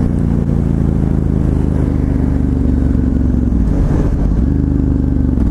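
Ducati Hypermotard 1100S's air-cooled L-twin engine running at steady riding revs; its note dips briefly about four seconds in and again near the end.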